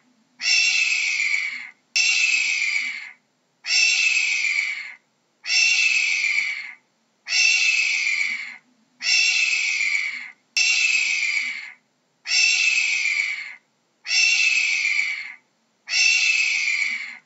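Hawk screaming: a harsh, slightly falling call about a second long, repeated about ten times, one every second and a half or so.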